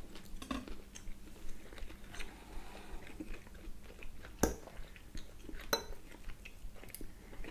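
Close-up eating sounds: quiet chewing and the light clinking of forks on ceramic plates and a glass bowl, with one sharp clink about four and a half seconds in and another a second later.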